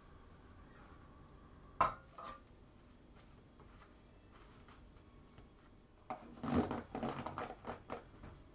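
Plastic cling film being put over a plastic food container on a stainless steel counter: a sharp knock about two seconds in, then a couple of seconds of plastic rustling and rubbing near the end.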